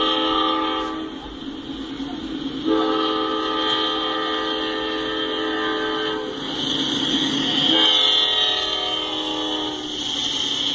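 Norfolk Southern freight locomotive's air horn blowing long blasts of a steady chord for a grade crossing: one ends about a second in, a long blast follows at about three seconds in, and a shorter one comes near eight seconds. The locomotive's rumble and wheel noise fill the gaps between blasts.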